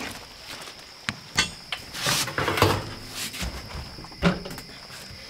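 A few scattered knocks and clunks of cooking gear being handled, a metal lid on a pot among them, the loudest about four seconds in.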